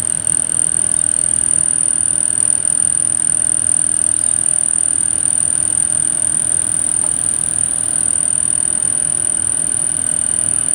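Sieg SX2 mini mill running, its 50 mm single-insert face mill facing aluminium on the final 0.1 mm pass at a slow 400 mm/min feed. A steady high-pitched whine sits over a constant machine hum throughout.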